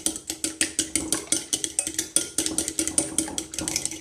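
Metal fork beating egg into apple and pumpkin purée in a glass bowl: rapid, steady clinks of the fork against the glass, several a second, with the bowl ringing faintly beneath.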